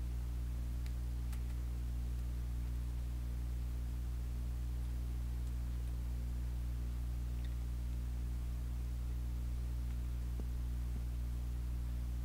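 Steady low electrical hum, with a few faint ticks.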